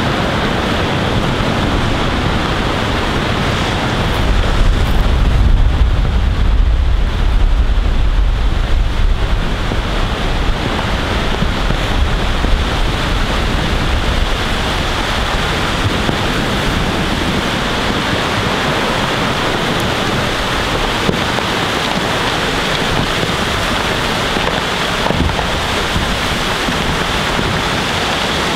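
Small iceberg breaking up in ice-filled fjord water, heard as a deep rumble from about four to ten seconds in. Throughout there is a steady rushing of wind on the microphone and moving water.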